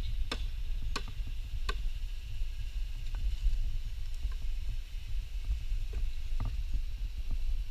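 Wind buffeting an action camera's microphone, a constant low rumble, with three sharp clicks in the first two seconds and a weaker one near the end, over a faint steady high hiss.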